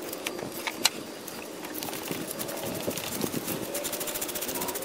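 Ratchet wrench with an extension clicking as it works the 14 mm starter mount bolts loose. A couple of single sharp clicks in the first second, the loudest just under a second in, then a rapid, even run of ratchet clicks.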